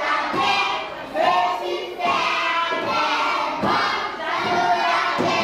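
A class of young children singing together in unison, in short loud phrases.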